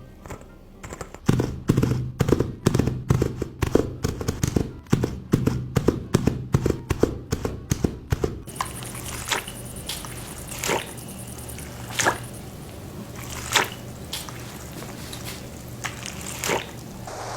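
Foley sound effects: a quick run of thuds and knocks, about four a second, for several seconds, then sparser sharp clicks over a steady hiss from about halfway.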